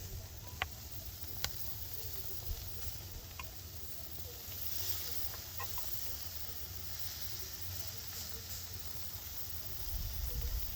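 Sirloin steak sizzling on a grill grate over wood embers: a steady hiss broken by a few sharp pops and crackles.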